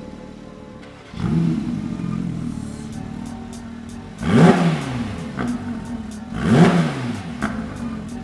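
Porsche 992 GT3 RS's naturally aspirated flat-six idling through an Akrapovič titanium slip-on exhaust, getting louder about a second in, then revved twice in quick, sharp throttle blips that rise and fall back to idle.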